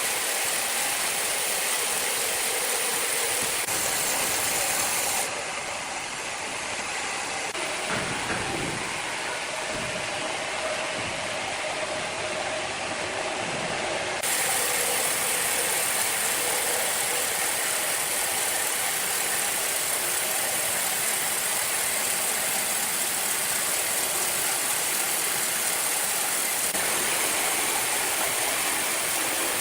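Sawmill machinery running steadily with a constant hiss and mechanical rattle; the sound changes briefly between about five and fourteen seconds in.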